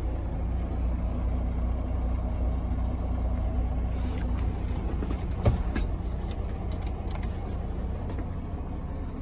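Detroit DD15 inline-six diesel of a Freightliner Cascadia idling steadily, heard from inside the cab. A few light clicks and one sharp knock come about halfway through.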